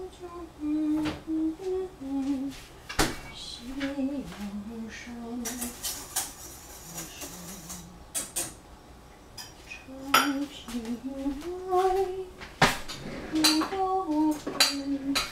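A woman humming a slow tune, with sharp clinks and knocks of kitchen utensils against dishes scattered through it; a few of the knocks are loud.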